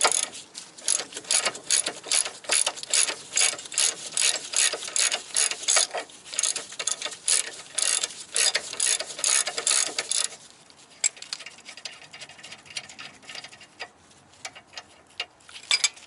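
Hand ratchet clicking in quick repeated strokes, about three or four a second, as it loosens the nut on the lower ball joint stud. At about ten seconds in the clicking turns fainter and sparser as the nut comes loose.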